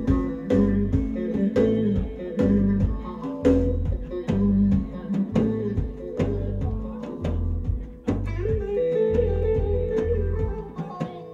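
Live band music: bass guitar and guitar playing over drum hits with a steady beat.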